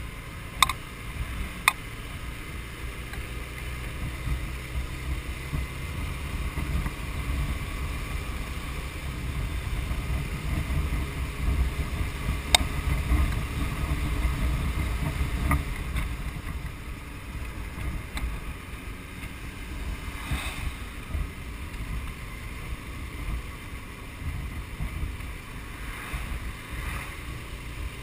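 Wind rush and low rumble on a camera mounted on a moving motorcycle, with a few sharp clicks, two near the start and one about midway.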